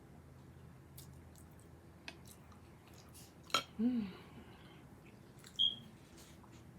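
Close-miked eating sounds: faint chewing and mouth clicks, with a sharper click about halfway through and a brief rising-and-falling hum just after it. A short high squeak comes about a second later.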